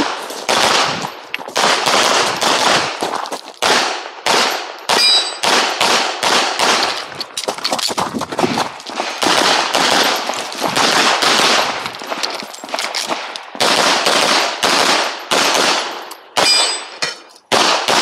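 Pistol shots fired in quick pairs and short strings, with brief pauses between the strings.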